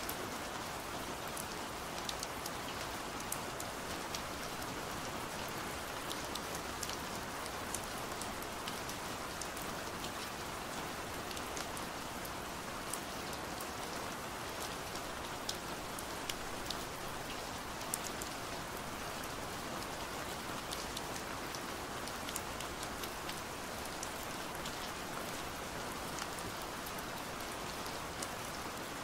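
Steady rain falling on window glass: an even hiss of rainfall with many separate drops ticking sharply against the pane.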